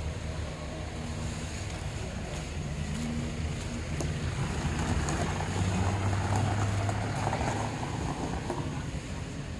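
An engine running with a steady low hum, swelling louder about halfway through and easing off near the end.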